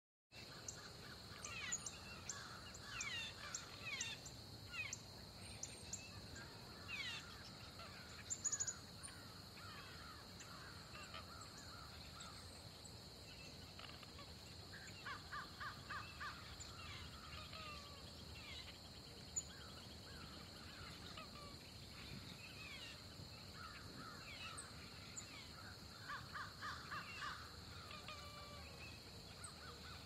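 Countryside ambience: many birds chirping and calling over a steady high-pitched insect drone. The calls are densest in the first ten seconds, with two short bursts of rapid repeated calls, one around the middle and one near the end.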